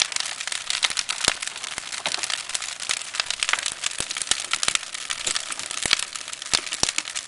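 Large bonfire of wooden pallets burning hard: a steady rushing hiss with dense, irregular crackling and sharp pops of the burning wood.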